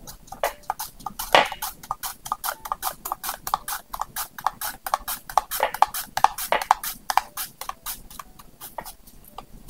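A radish being sliced on a plastic mandoline slicer: quick, even strokes across the blade, each a crisp click, about four or five a second, thinning out near the end.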